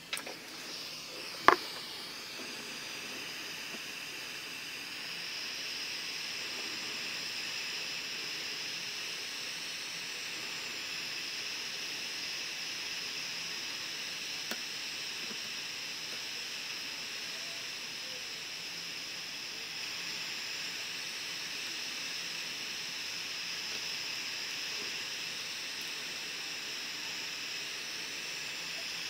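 Hot-air rework station blowing a steady hiss through its nozzle onto a surface-mount Renesas chip, heating the solder to lift the chip off the board. A sharp click comes about a second and a half in, and the hiss builds up over the next few seconds.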